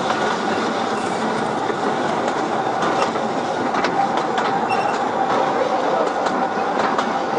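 Narrow-gauge mountain train's open carriages running along the track: a steady rattle and rumble of wheels on rails, with scattered clicks and a thin, steady wheel squeal as the train rounds a curve.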